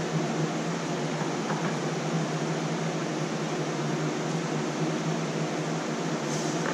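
Steady hum and rushing air of room cooling fans running, unchanging throughout.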